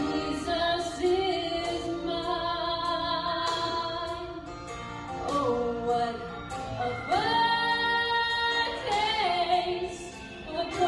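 Women singing a gospel song, with one long held high note about seven seconds in.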